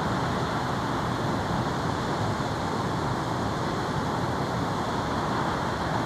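A steady, even rushing noise with no distinct events.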